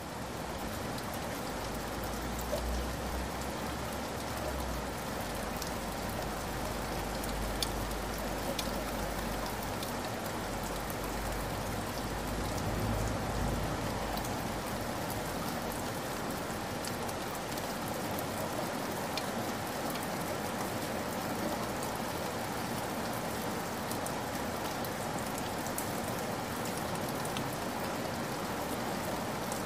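Heavy rain falling steadily on the ground, a dense even hiss with scattered sharper drop splashes. A low rumble runs underneath for about the first half, then fades out.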